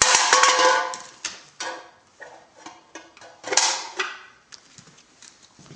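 A dog's claws clicking on a hard floor as it moves, with two louder noisy clatters, one at the start and one about three and a half seconds in.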